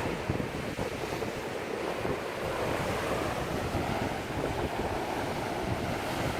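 Waves breaking and washing over seaside rocks in strong wind, with wind buffeting the microphone in low rumbling gusts.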